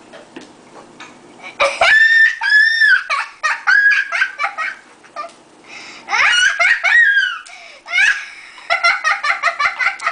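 A child laughing hard in three high-pitched, squealing bouts of rapid giggles, the first coming about two seconds in and the last running to the end.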